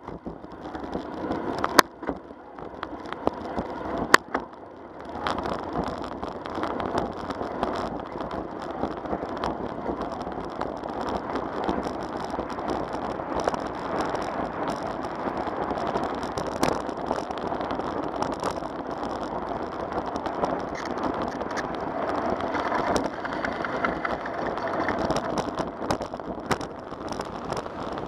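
Bicycle tyres rolling over a cracked concrete trail, a steady rolling rumble with small rattles and ticks from the bumps. It is quieter at first and fuller from about five seconds in, with a couple of sharp clicks in the first few seconds.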